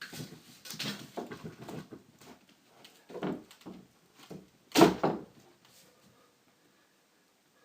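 Clothes rustling and knocking against a bedroom door as they are pulled on their door hooks. A thud comes about three seconds in, then a loud bang near five seconds as the hooks come off the door.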